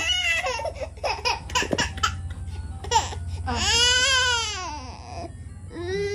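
Infant crying in fussy wails: a short cry at the start, a long wail that rises and falls around the middle, and another cry near the end, with choppier whimpers in between.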